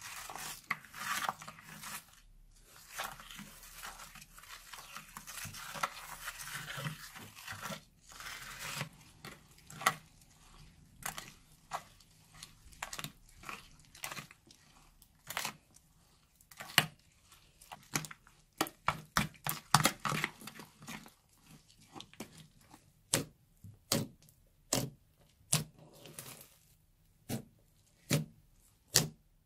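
Plastic spoon stirring and folding a wet, foamy slime mixture with decorative sand in a glass dish, making a steady crackly squelching. About nine seconds in this gives way to separate sharp sticky pops and clicks as the slime is pulled and pressed, with hands kneading it near the end.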